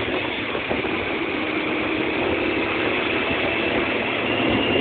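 Steady engine and road noise heard on board a moving vehicle as it drives along a street.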